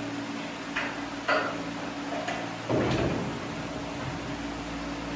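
A few light clicks and knocks, then a louder clunk about three seconds in, as suspension parts are handled and fitted, over a steady hum like a shop fan.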